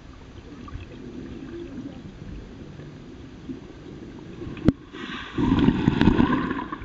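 Water heard from underwater: a muffled low rumble, a single sharp click about two-thirds of the way in, then a sudden loud rush of churning water and bubbles as a person plunges feet-first into the pool.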